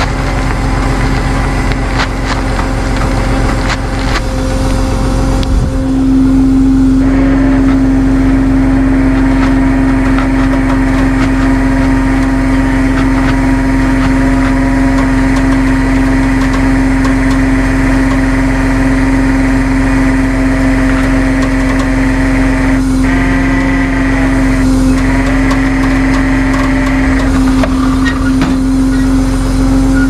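Tow truck engine and hydraulic winch running under load, pulling a car out of a ditch: a steady loud hum with a strong pitched whine that comes up sharply about six seconds in as the winch takes the strain, dipping briefly twice about two-thirds of the way through.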